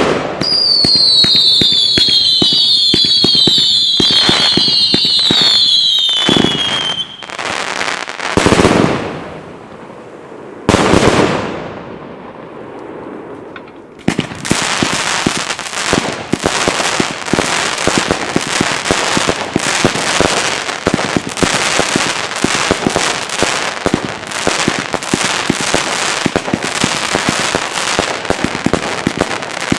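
Consumer fireworks cakes firing: a run of whistling shots, each falling in pitch, mixed with bangs for the first seven seconds, then two heavy bangs with long tails near 8 and 11 seconds. From about 14 seconds on comes a dense, continuous rapid crackling.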